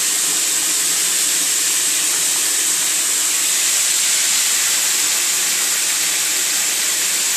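Chopped vegetables frying in hot oil in a kadai: a steady, even sizzle.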